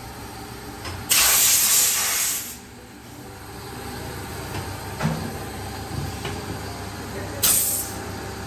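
Two loud hissing blasts of compressed air in a tyre workshop: one about a second in lasting about a second and a half, a shorter one near the end.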